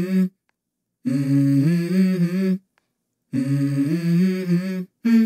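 Background music: a wordless hummed vocal line, the same short phrase repeated with brief silences between.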